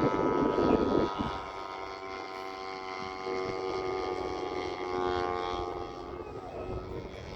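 Large gas-engined radio-controlled airplane flying, its engine and propeller giving a steady drone that wavers slightly in pitch. A loud rustling noise covers about the first second.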